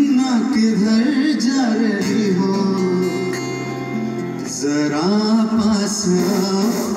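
Live Hindi film song: a man singing into a microphone over keyboard and hand-drum accompaniment. A held instrumental passage comes in about two seconds in, and the voice returns about halfway through.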